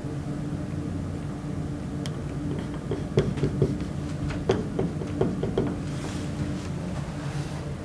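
Felt-tip whiteboard marker dabbing out a dashed line on a whiteboard: a quick run of short taps, most of them from about three seconds in, over a steady low hum.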